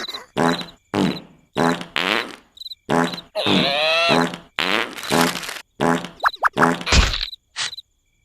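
Cartoon character's vocal snoring effects: a quick series of short snores, about two a second, with a longer wavering, pitch-sliding snore a little before the middle. Crickets chirp steadily behind.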